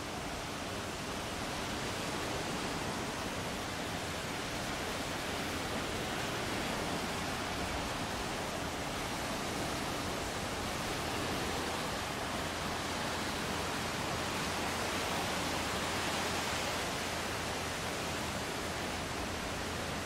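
Sea surf washing steadily onto the beach, a continuous rush that swells and eases slowly.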